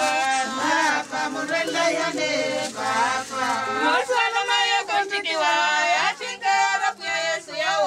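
A group of people singing a hymn together, several voices on one melody with long held notes.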